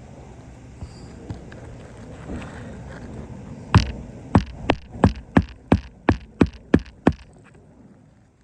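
Hammer driving a roofing nail into a shingle: about ten sharp blows in a steady rhythm of roughly three a second, starting about four seconds in after a few faint clicks.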